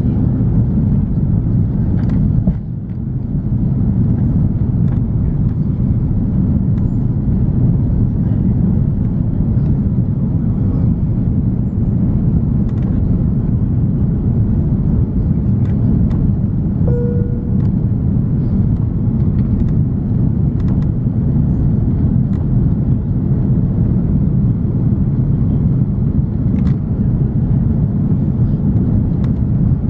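Cabin noise of an Airbus A340-300 in flight: a steady low rumble from its four engines and the airflow, with faint ticks and rattles. There is a brief dip in level about two and a half seconds in, and a short single tone sounds about seventeen seconds in.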